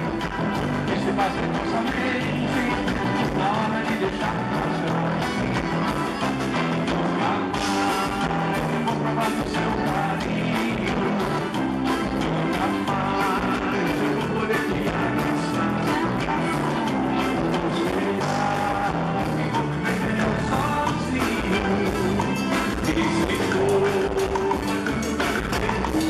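Live band music: a Scandalli piano accordion played over drum kit, keyboard and electric guitar, with a steady repeating bass line.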